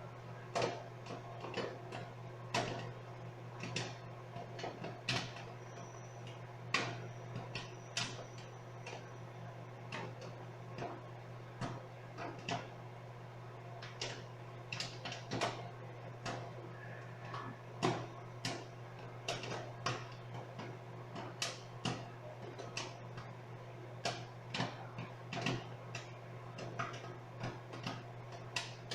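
Popcorn popping inside a microwave oven: irregular sharp pops, one to three a second, over the oven's steady low hum.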